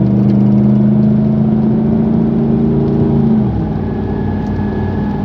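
Steady low droning hum, like a whir, inside the cab of a lifted 2008 Chevy Silverado 1500 5.3 L while driving at about 45 to 50 mph. It is the truck's unidentified noise, which seems to come from the back, and it fades out about three and a half seconds in.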